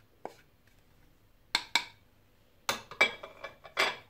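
A ceramic plate and a wooden spoon knocking against an aluminium pressure-cooker pot as ground spices are tapped in: two sharp clinks about a second and a half in, then a rattling run of knocks with a brief metallic ring in the last second and a half.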